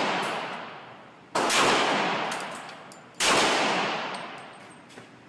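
Glock 35 pistol in .40 S&W fired twice, about two seconds apart, each shot sharp and followed by a long fading echo; the echo of a previous shot is dying away at the start.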